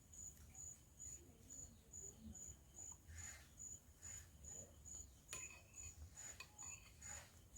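A cricket chirping steadily in a high, even pulse, about two to three chirps a second. A few faint clicks come in the second half.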